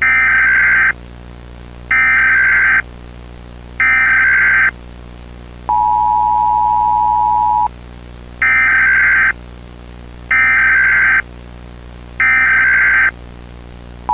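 Emergency Alert System tones: three short digital header bursts about a second apart, then the steady two-tone attention signal for about two seconds, then three more header bursts, with the two-tone signal starting again at the very end. The bursts are the coded header that opens an emergency alert, and the two-tone signal announces that an emergency message follows.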